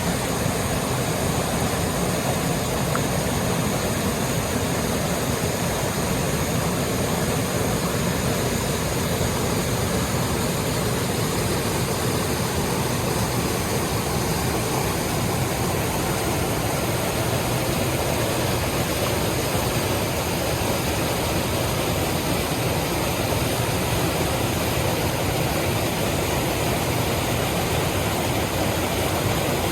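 Water rushing steadily, an even unbroken hiss with no separate splashes or breaks.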